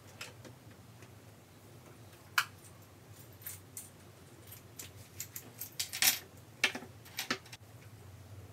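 Jewelry clinking and clicking as small pieces are handled and hung in a jewelry organizer cabinet: scattered light clicks, one sharper click about two seconds in and a quick run of them in the second half.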